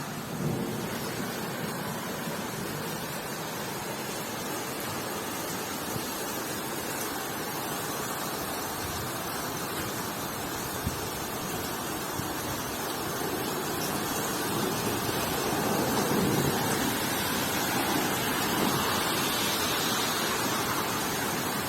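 Heavy rain pouring down in a downpour with storm wind, a steady rushing hiss that grows somewhat louder in the last third.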